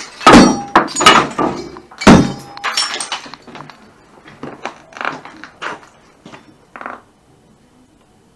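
Hammer blows smashing debris on a board set on a drum: three hard strikes in the first two seconds or so, then scattered clinks and rattles of broken pieces that die out about seven seconds in.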